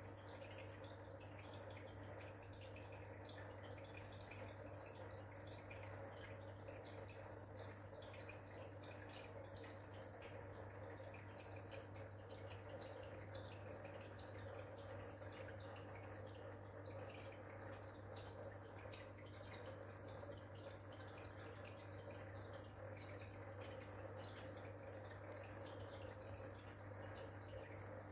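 An aquarium's internal filter running: a faint, steady trickle and drip of water with a constant low hum.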